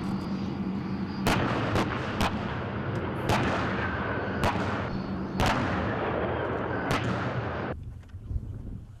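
Gunfire on a tank range: about seven sharp shots at uneven intervals over the steady running of tank engines. The sound cuts off abruptly near the end.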